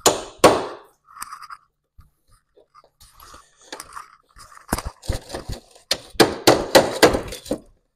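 Sharp knocks on steel as the tabs holding the rear bumper's bolts are knocked out: a few blows at the start, then a quick run of about three or four a second in the second half.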